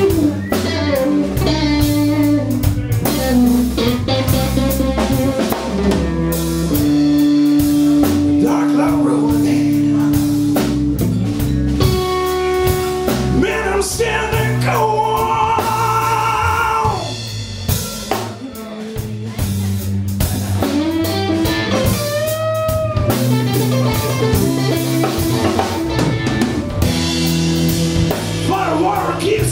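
Live blues trio of electric guitar, electric bass and drum kit playing a slow blues, the electric guitar carrying the lead with long held notes and bent notes that waver in pitch.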